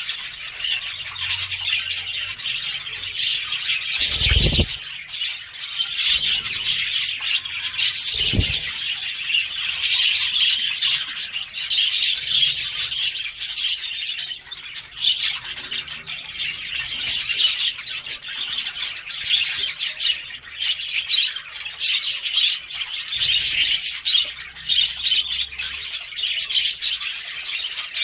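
A flock of budgerigars chattering continuously, many birds' chirps and warbles overlapping without a break. Two brief low thumps come about four and eight seconds in.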